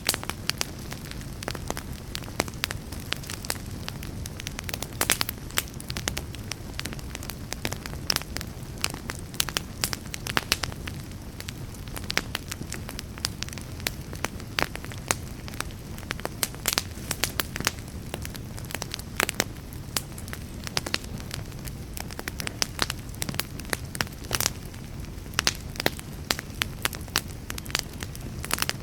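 Wood fire crackling in a fireplace: irregular sharp pops and snaps over a steady low rumble of burning.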